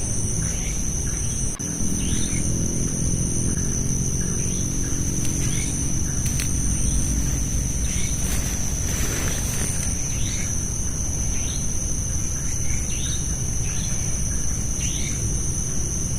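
Night forest insects holding a steady high-pitched trill, with short rising calls repeating about once a second that the campers take for a bird's call, over a steady low rumble.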